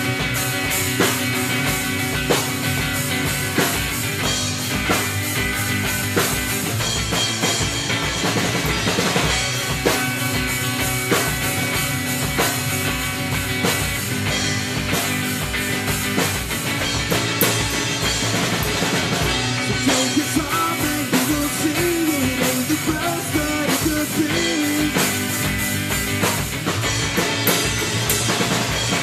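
Rock music from a band with drum kit and guitars, a steady beat driven by the kick drum.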